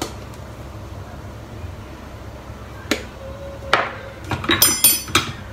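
Kitchen items being handled: after a quiet stretch, a sharp click about three seconds in, another a little later, then a brief run of clicks and clatter of hard plastic and glass near the end as a glass pepper jar and the glass blender jug are handled.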